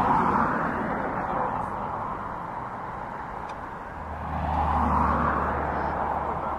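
Airliner jet engines at taxi power: a rushing hiss that swells twice, with a low steady hum coming in about four seconds in.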